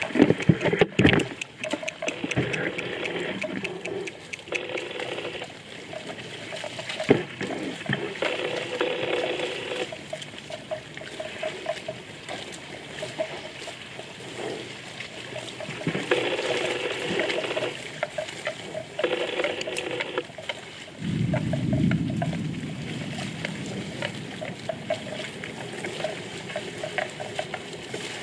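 Shallow floodwater sloshing and splashing as a herd of water buffalo wade and graze through it. Sharp knocks stand out about a second in and again about seven seconds in.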